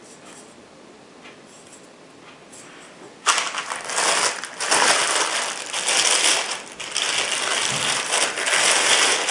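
Clear plastic wrapping crinkling and rustling as hands peel it off a rifle scope, starting suddenly about three seconds in.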